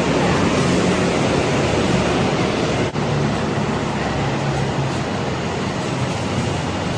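Steady roar of road traffic, broken by a brief dropout about three seconds in.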